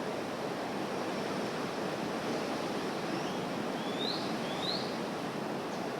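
Sea waves washing steadily as a soft, even rush of surf. Around the middle, a few faint, short rising chirps sound over it.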